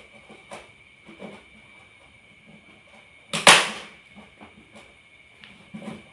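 Small clicks and knocks of hands handling cables at the back of an active speaker cabinet, with one loud, short hissing burst about three and a half seconds in. A faint steady high whine runs underneath.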